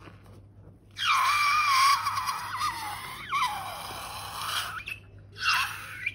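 Air squealing out of a stretched rubber balloon neck: a long, high squeal with a wavering pitch lasting about four seconds, then a shorter squeal near the end.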